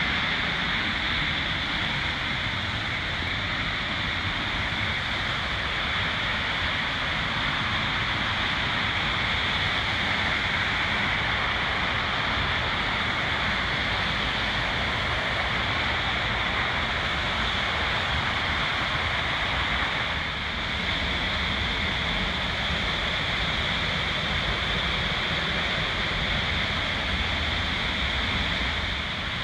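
Waterfall rushing steadily, a continuous even noise of falling water picked up by a phone microphone.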